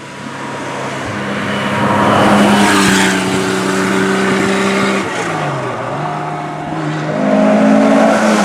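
Rally car engine at high revs, growing louder as the car nears and passes. The engine note holds steady, falls briefly about five seconds in, then climbs again near the end.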